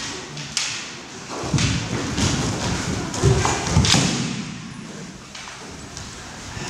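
Bamboo shinai clacking and knocking together and bare feet thumping on a wooden floor as two kendo fighters break from close contact and move apart. The knocks and thuds come thickest in the first four seconds and ease off after that.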